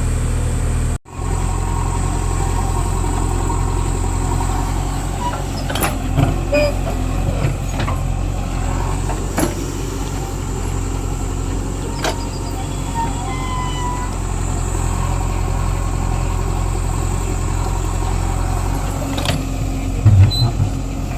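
A heavy vehicle's diesel engine running steadily, with a few light clicks and rattles over it and some louder low knocks near the end. The sound drops out sharply for a moment about a second in.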